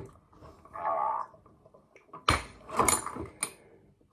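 Door-closer hardware working, probably the gate swinging under its closer. A brief rubbing sound comes about a second in, then three sharp knocks or clacks within about a second.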